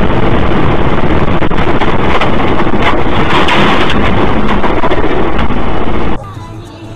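Loud, overdriven rushing noise of a moving car as picked up by a dashcam microphone: wind and road noise. It drops off suddenly about six seconds in to a much quieter road hiss.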